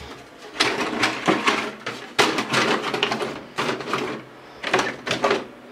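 Plastic body shell of a Traxxas Slash RC truck being handled and fitted onto the chassis: irregular rustling and clattering of plastic over about five seconds.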